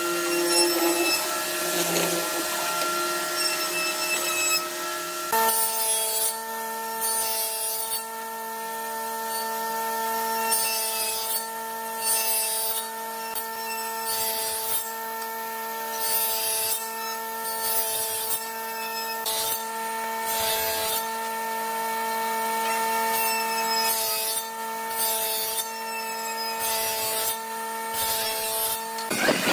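A hollow-chisel mortiser running as its chisel bores into a pine rail, then, about five seconds in, a table saw running steadily as its blade cuts into the end of a wooden rail again and again, slotting tenons.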